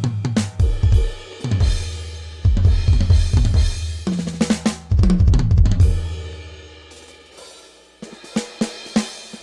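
Drum kit being played: kick drum, snare and cymbal hits in quick runs, the low drums ringing on in long booming tails. The hits die away about six seconds in, leaving a brief lull before a fast run of hits starts again near the end.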